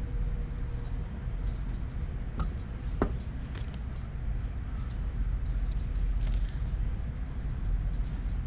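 Steady low background rumble, with a couple of faint clicks about two and three seconds in.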